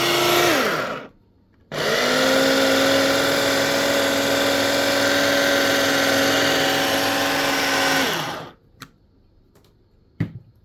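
Electric food chopper motor running in two pulses: a short one that winds down about a second in, then after a brief pause a longer run of about six seconds that winds down again, grinding boiled mushrooms with garlic and spices into pâté. A few light clicks and a knock follow near the end.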